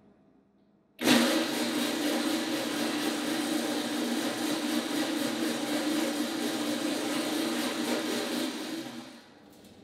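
Electric cement mixer converted into a rotary compost and soil sifter, its motor turning the empty wire-mesh drum. It is switched on about a second in, runs steadily and very loud, then is switched off and winds down near the end.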